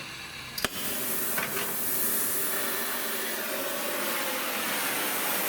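A sharp click about half a second in, then the steady hiss of an oxy-acetylene torch's high-pressure gas jet.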